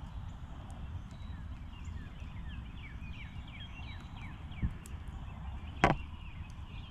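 Outdoor ambience: a steady low rumble, with a bird chirping a quick run of short falling notes partway through. A low thump comes near the end, followed by a single sharp click.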